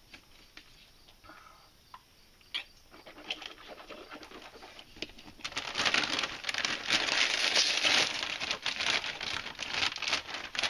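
Lay's Kettle Cooked potato chip bag crinkling as it is handled and pulled open. A few faint rustles come first, and a dense run of crackling starts about five seconds in.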